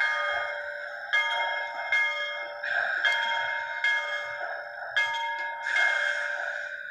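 Steam locomotive bell sound from a Soundtraxx Tsunami2 sound decoder in an HO scale New York Central H-10 2-8-2 model, ringing about once a second through the model's small speaker over a steady hiss.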